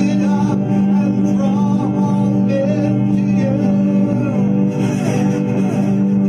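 Slow worship music: a singing voice carries a wavering melody over steady sustained chords.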